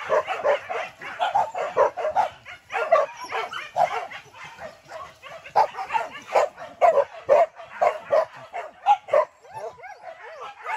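A pack of wild-boar hunting dogs yelping and barking in quick, overlapping calls that keep going without a break.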